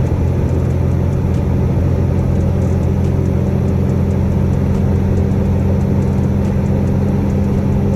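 Semi-truck's engine running steadily as the truck drives on, with a constant low drone and road noise.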